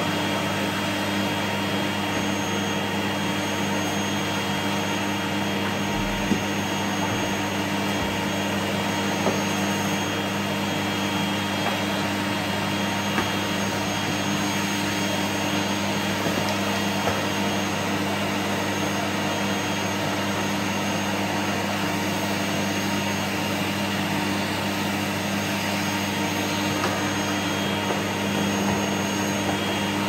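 Canister vacuum cleaner running steadily: a constant motor drone with several held pitches over an airy hiss. A few light knocks now and then.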